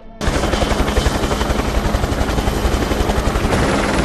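Helicopter running on the ground with its main rotor turning: a loud, steady engine and rotor noise with a fast, even beat of the blades, cutting in abruptly a moment in.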